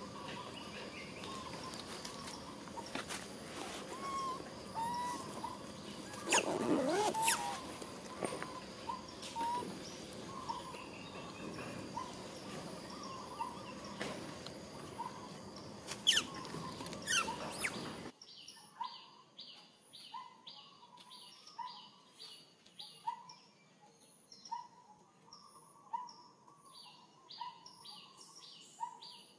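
Outdoor ambience with repeated short bird calls over a steady hiss, and a louder call that slides in pitch about six seconds in. A few sharp clicks come near the middle. About two-thirds of the way through, the background hiss drops away abruptly, leaving clearer, rapidly repeating bird calls.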